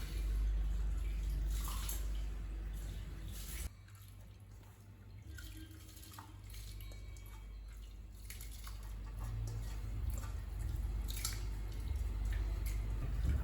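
Washed broken wheat being tipped into a pot of water, with drips and small splashes, over a steady low hum. The sound drops off suddenly a few seconds in and then builds back slowly.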